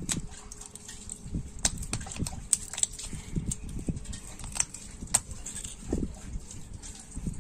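A screwdriver tip prying and scraping at the small metal grid parts of a disassembled CRT electron gun, giving scattered sharp metallic clicks and ticks, about half a dozen in all, over duller handling noise.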